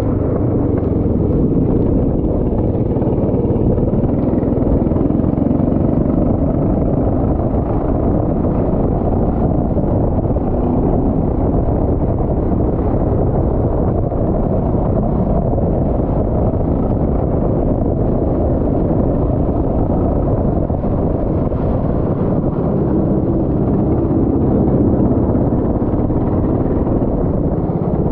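Go-kart engine running at racing speed, heard on board, with steady rumble from wind on the microphone.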